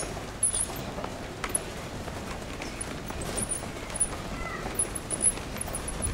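Pram wheels rolling and rattling over brick paving, with a litter of puppies in the basket and one brief high whimper about four seconds in.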